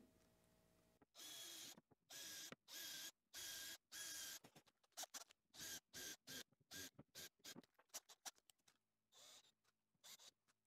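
Cordless drill run in faint short trigger bursts, drilling pilot holes through a thin plywood fence strip into a laminated chipboard sled base. There are about four half-second bursts with a steady whine, then a run of quicker, shorter pulses.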